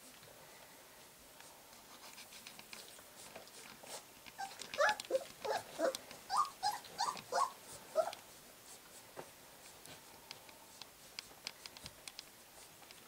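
Three-week-old golden retriever puppies whimpering and squeaking: a quick run of about a dozen short, high cries, each bending in pitch, from about four and a half seconds in for three or four seconds. Faint soft clicks and shuffling from the puppies moving sound throughout.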